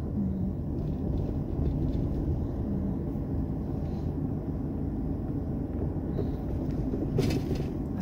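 Car driving slowly, heard from inside: a steady low rumble of engine and tyres on the road, with a brief rustling hiss near the end.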